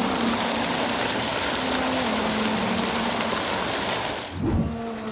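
Water gushing out of a stone outlet and splashing into a channel, a steady rushing hiss. It cuts off suddenly about four seconds in, followed by a brief low thump.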